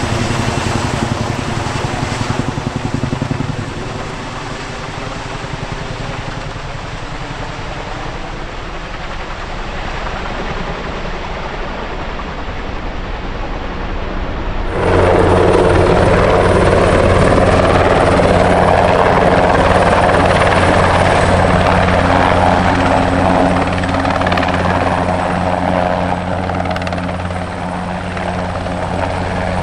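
Military transport helicopter's rotors and turbine engines running steadily. About halfway through the sound jumps suddenly to a louder, closer recording of the same kind.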